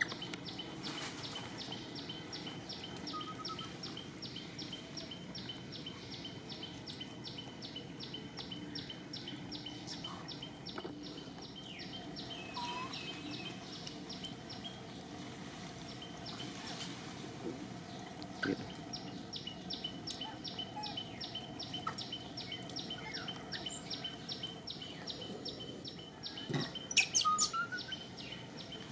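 Outdoor ambience with an even, repeating high chirp, about three a second, that drops out for several seconds in the middle and then resumes, with a few short scattered calls over it. Near the end comes a brief loud, sharp burst.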